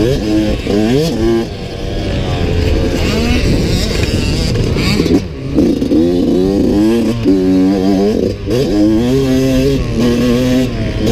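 Yamaha YZ125X's 125 cc two-stroke single-cylinder engine under riding load, revving up and down as the throttle is worked. The pitch climbs in steps through the gears and drops away briefly when the throttle is shut, about five and eight seconds in.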